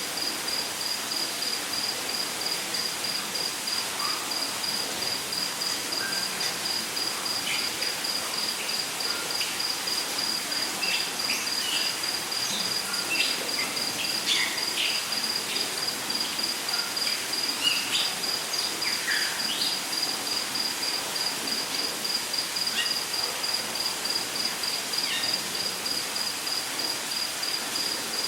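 Rainforest ambience: an insect, cricket-like, keeps up a steady, rapidly pulsing high chirp. Short bird chirps and whistles come and go over a steady hiss.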